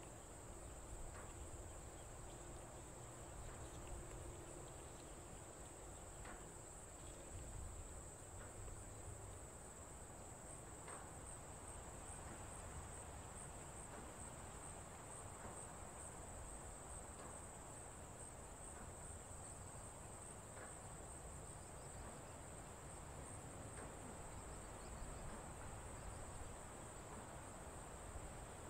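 Steady, high-pitched chirring of insects that runs without a break, with a few faint taps of utensils.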